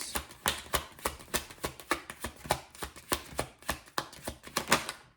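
Tarot deck being shuffled by hand: a rapid run of dry card clicks, several a second, stopping just before the end, as cards are shuffled to draw a clarifier.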